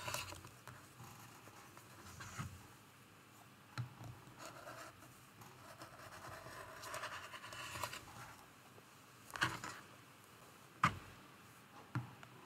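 Rotary cutter rolling through fabric in faint, intermittent scratchy strokes, with several sharp clicks between them; the blade is one its user thinks is due for replacement.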